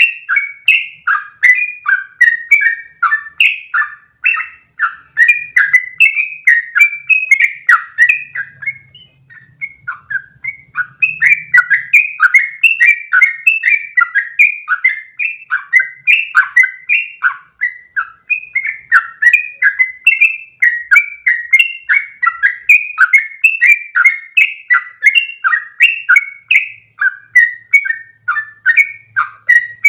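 Yellow-vented bulbul (trucukan) singing a long, unbroken run of quick bubbly notes, about three a second, with a short softer lull about nine seconds in.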